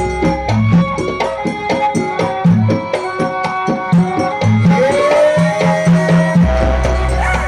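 Banyuwangi gandrung dance music, with a busy hand-drum rhythm under repeated pitched percussion notes. A sliding melody line enters about halfway through.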